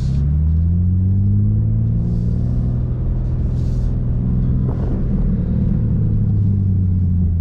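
BMW M3 Competition's twin-turbo straight-six pulling under throttle in manual paddle-shift mode, heard from inside the cabin. Its note rises over the first two seconds, then holds steady, with a brief click about five seconds in.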